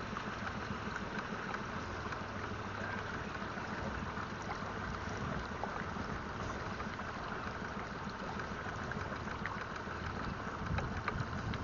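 Steady wind noise and water moving around a pontoon boat in gusty wind, with a low rumble and a few faint ticks near the end.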